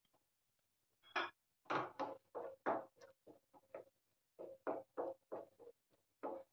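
Wooden spatula scraping and tapping against a nonstick frying pan while a thick white sauce with spinach and sweet corn is stirred: a run of short strokes, about two a second, starting about a second in.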